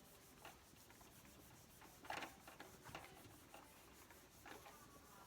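Faint rubbing strokes of an eraser wiping writing off a whiteboard, a few soft scrapes about two, three and four and a half seconds in.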